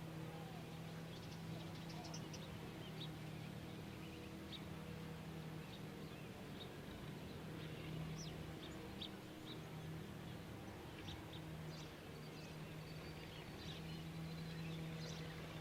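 Faint birds chirping in short, scattered calls over a low, steady hum.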